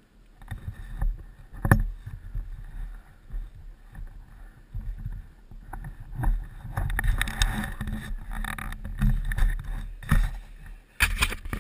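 Handling noise close to the camera: irregular rustling and knocks over a low rumble, with louder knocks near the end as a hand reaches for the camera.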